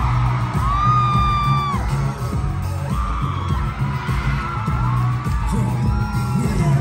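Live pop music from a concert PA with a heavy, pulsing bass beat, and high-pitched fan screams rising and falling over it several times.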